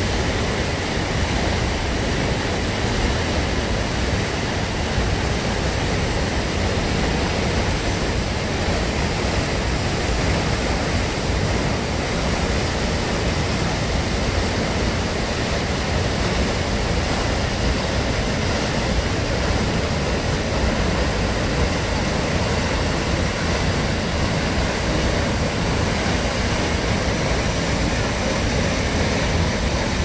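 Hardraw Force, a high single-drop waterfall, pouring into its plunge pool: a loud, steady rush of falling water.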